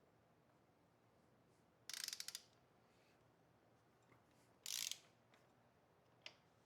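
Hand ratchet clicking in two short bursts of rapid clicks, about two and a half seconds apart.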